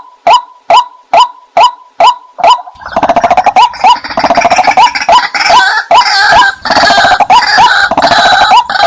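White-breasted waterhen calls played as a decoy lure: a short 'kwak' note repeated evenly about twice a second. About three seconds in, a harsh, dense chatter of overlapping calls joins over the repeated notes and drops out again near the end.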